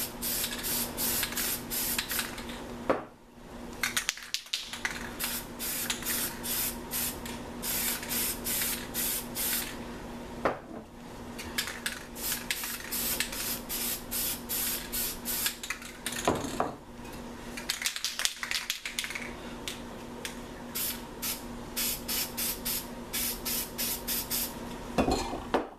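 Aerosol spray paint cans hissing in rapid short bursts, with a couple of brief pauses between runs.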